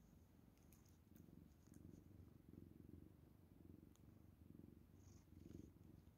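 A 15-year-old cat purring faintly while being stroked, the low purr swelling and fading with each breath.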